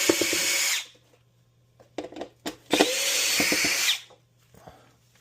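Power drill/driver backing out screws: two short runs of the motor, the first ending just under a second in and the second lasting about a second and a half from near the middle, each spinning up and winding down, with small clicks of handling between.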